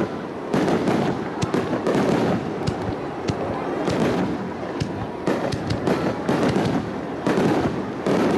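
Aerial fireworks shells bursting one after another in quick succession, the booms overlapping with sharp crackling.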